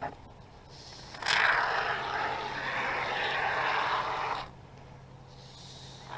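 Aerosol can of Great Stuff Gaps & Cracks expanding foam hissing as foam is sprayed into a seam between insulation panels. One steady spray of about three seconds starts and stops abruptly, beginning about a second in. A short second burst comes near the end.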